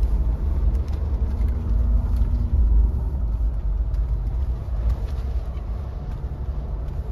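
Mahindra Thar 4x4 driving on a mountain road: a steady low engine and road rumble.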